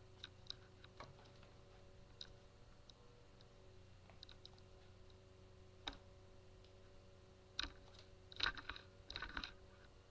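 Faint scattered clicks and taps over a steady low hum. Several clicks come in quick clusters near the end.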